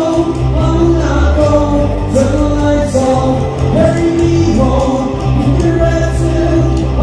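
A live band playing: a man singing over an electric guitar and bass guitar, with sustained held notes.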